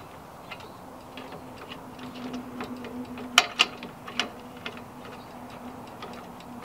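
Scattered metal clicks and knocks from clamp-on ladder mounting hardware being fitted by hand at the bottom edge of a van's rear door. The loudest are a few sharp clicks about halfway through, over a faint steady hum.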